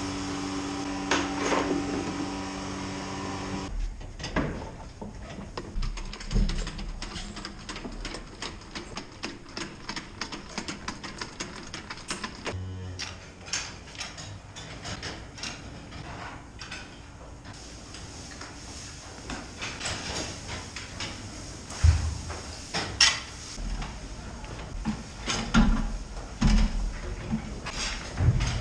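Milk pouring from one bucket into another over a steady machine hum. After that come irregular clanks, knocks and scrapes as hay is forked into the feed alley and cows feed at metal feed barriers, with a few heavier thumps near the end.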